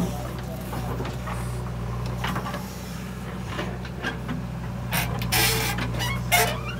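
Diesel engine of a JCB 3DX backhoe loader running steadily under hydraulic load while the backhoe arm swings and the bucket digs, with creaks and clanks from the arm and bucket. There is a short burst of noise about five seconds in and a sharp knock near the end.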